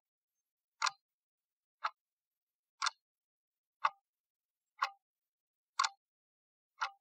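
Clock ticking sound effect, one short sharp tick a second, counting down the seconds of a quiz timer.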